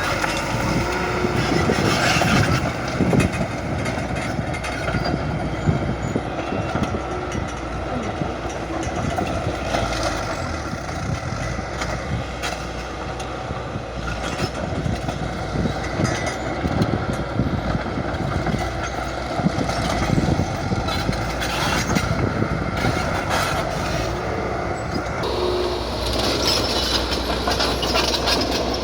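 Crawler bulldozer working: the diesel engine runs steadily under a dense clatter of steel tracks clanking and squealing. A brighter hiss joins in about 25 seconds in.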